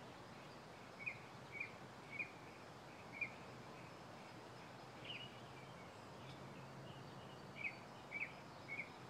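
Short, high chirps from a small bird, repeated at uneven intervals of about half a second to two seconds, over a steady outdoor background hiss.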